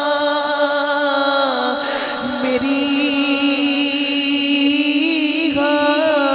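Naat being sung: a man's voice chanting long held notes over a steady held tone beneath, the melody bending about two seconds in and again near the end.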